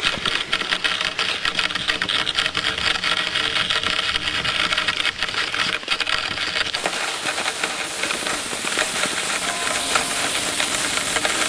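Steady hiss of wind and ski movement on snow picked up by a moving camcorder microphone, with a fast fine crackle through it. About seven seconds in it turns into a smoother, brighter hiss.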